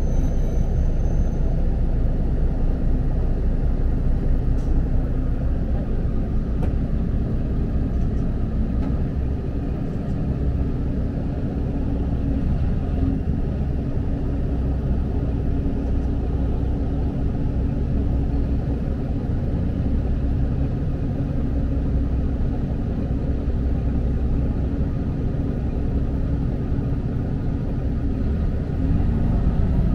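Diesel railcar of the Akita Nairiku Jukan Railway running along the line, heard from inside the cabin: a steady low engine drone and rumble.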